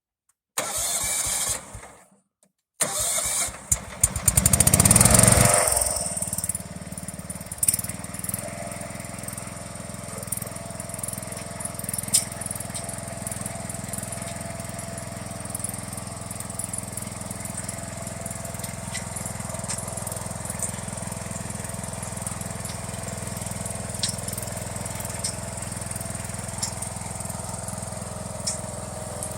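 John Deere Hydro 165 lawn tractor's engine being cranked by its starter: a first try stops after about a second and a half, and the second try catches about four seconds in, with a loud surge before it settles into steady running.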